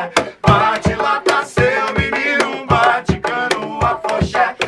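Acoustic band playing a song live: a man singing over acoustic guitar and flute, with hand percussion keeping a steady beat.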